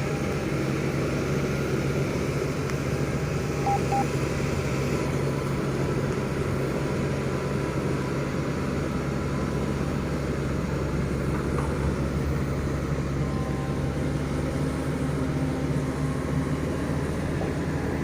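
Doosan DX225LCA excavator's diesel engine running steadily, with faint steady higher tones over the engine note.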